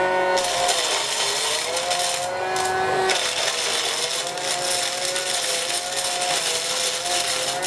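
A small electric motor and fan in a homemade bottle vacuum cleaner running, with a whine whose pitch dips and recovers several times and a rushing hiss of air that briefly drops out about two and a half seconds in.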